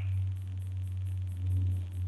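Fast clicking picked up by a phone, about five pulses a second, over a steady low hum.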